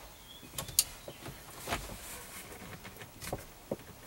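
Faint, irregular clicks and light knocks of a half-inch drive socket and ratchet being fitted onto the steering wheel's 19 mm center nut.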